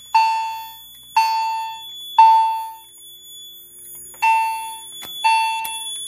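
Wheelock CH90 fire alarm chime sounding in alarm after a pull station was pulled: struck, ringing chime tones about once a second, each decaying quickly, with one strike missing about three seconds in. A thin steady high whine runs underneath.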